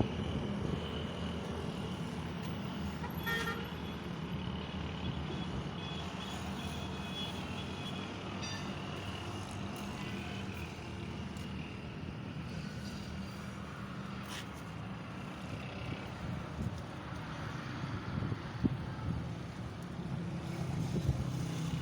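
A car engine running steadily, with road and traffic noise around it.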